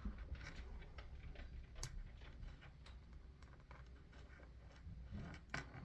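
Light, irregular clicks and taps of small plastic and metal RC crawler axle parts being handled and fitted together by hand. There is a sharper click about two seconds in and several more close together near the end.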